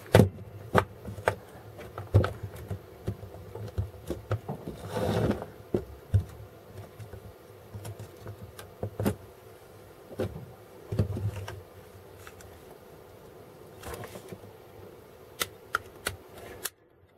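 Plastic housing parts of a desoldering gun being handled and pressed together by hand: irregular clicks and knocks, with a scrape lasting about a second around five seconds in.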